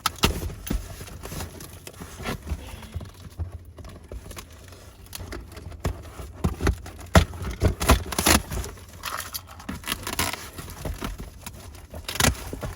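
Delivery packaging being wrestled open by hand without scissors: irregular crinkling, tearing and scraping of the wrapping with sharp knocks and clicks, loudest in a cluster of knocks in the middle.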